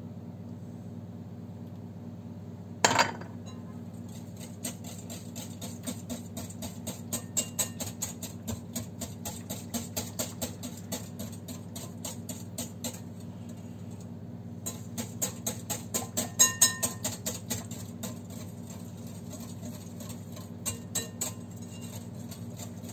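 Wire whisk beating a wet batter in a glass bowl, its wires clinking against the glass in rapid, rhythmic strokes, with a short pause midway and a louder stretch just after. About three seconds in there is a single sharp clink.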